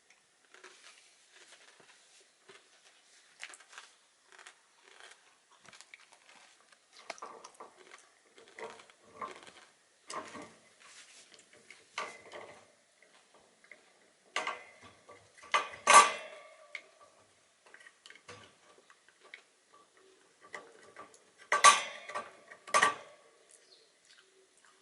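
Shiba Inu gnawing on a horse hoof chew: irregular clicking, scraping and crunching of teeth on hard hoof, with a loud knock about two-thirds of the way through and two more near the end.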